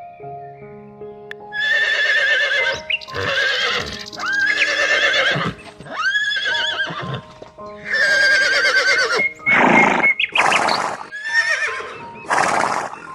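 Horses neighing: about five separate whinnies of about a second each, with a quavering pitch, then a few short noisy blasts near the end. Background music plays underneath.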